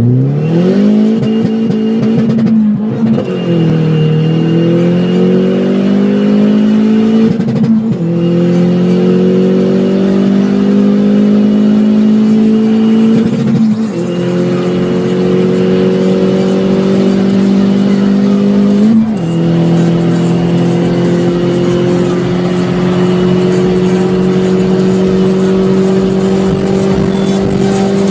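Peugeot 207 GTi's turbocharged 1.6-litre four-cylinder engine pulling hard at high revs through the gears. Four upshifts come about 2.5, 8, 14 and 19 seconds in; each is a short dip in sound and a drop in pitch. After each shift the engine note climbs again, more slowly in each higher gear.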